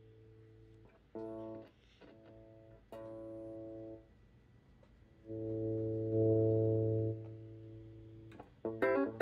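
Electric guitar played through a Fender Pro Junior III tube amp powered through a light bulb limiter for testing. Three chords are struck and left to ring, the third the loudest, then quick picked notes begin near the end, with a steady low hum from the amp underneath.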